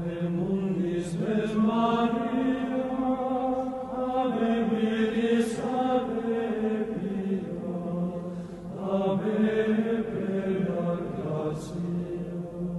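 Slow sung chant of held notes over a steady low drone, moving to a new phrase about four seconds in and again near nine seconds, softening near the end.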